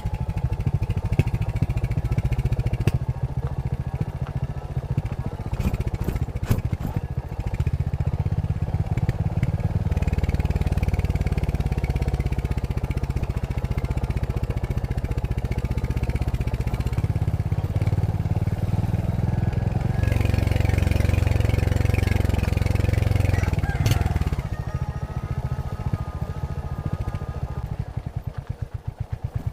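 Royal Enfield Hunter 350's single-cylinder engine running through its stock exhaust while riding. It pulls harder for a few seconds past the middle, eases off about four-fifths of the way in, and settles into a slow, even thump near the end.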